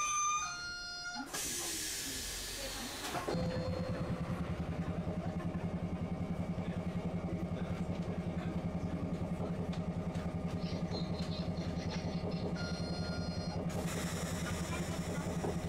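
Inside a streetcar: a short electronic chime, then a loud hiss of compressed air lasting about two seconds. After that the car's air compressor runs with a steady low hum and a fast, even throb. Another short chime of stepped tones sounds near the end.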